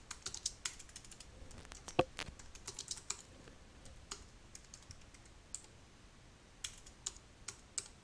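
Computer keyboard being typed on: irregular keystroke clicks, a quick run in the first three seconds, a few scattered ones, then another run near the end.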